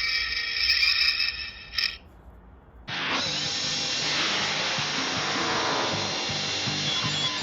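A buzzing, whirring mechanical-sounding effect that cuts off about two seconds in. After a brief lull, music with a steady beat starts suddenly about three seconds in.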